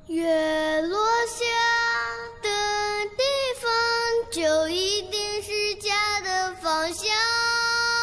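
A high solo voice singing a slow, plaintive melody in the score, with long held notes.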